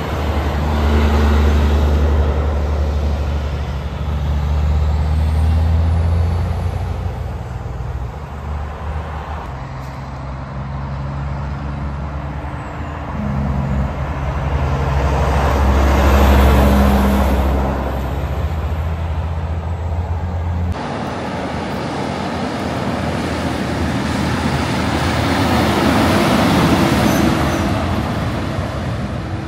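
Heavy trucks passing one after another on a highway, each deep diesel engine drone and its tyre noise swelling and fading as it goes by, about four passes in all.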